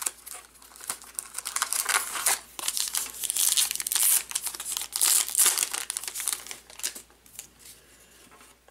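A trading card pack's foil wrapper being torn open and crinkled by hand: a run of crackling rustles that dies down about seven seconds in.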